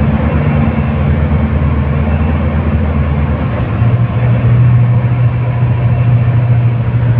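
Cummins diesel engine of an Iveco Metro city bus, heard from inside the cabin, running under way with road noise. Its low engine note shifts and grows stronger about four seconds in.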